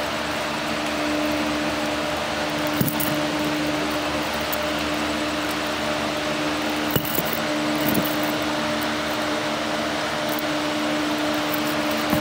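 Steady mechanical hum and hiss, like a running fan, with a few short clicks about three, seven and eight seconds in.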